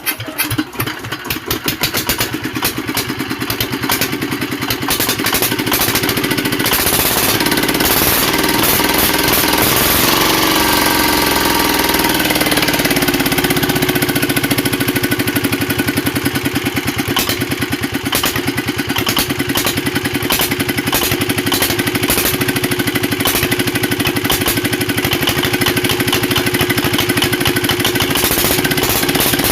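R180 single-cylinder diesel engine running just after starting, with a fast, even firing rhythm. Its speed shifts over roughly the first dozen seconds, then settles into a steady run.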